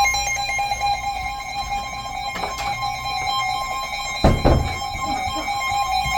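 Emergency Alert System attention signal from a radio: a steady two-note alert tone held for several seconds before a warning message. A short thump about four seconds in.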